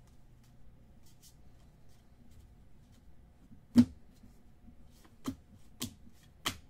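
Trading cards being handled on a table: faint rustling and ticking, then four sharp clicks in the second half, the first and loudest a little past the middle.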